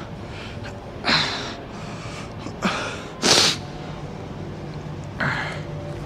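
A person breathing out hard through the nose and mouth in four short, sharp breaths.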